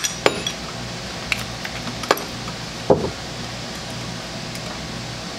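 A few sharp metallic clinks of a hand wrench on a nut on the Borg-Warner Velvet Drive transmission's mounting stud, four within about three seconds, over a steady low hum.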